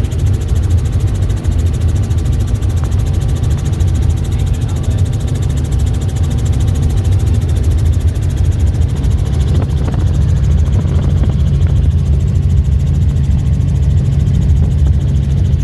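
Helicopter rotor and turbine noise in flight, a loud steady low thrum with a fast even beat.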